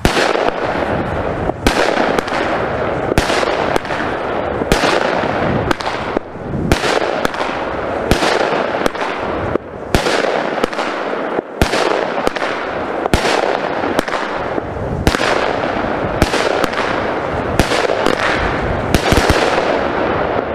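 Weco Sterling Thunder 16-shot fireworks cake firing shot after shot, a sharp bang about every second and a half with a continuous crackle of silver-white stars between them.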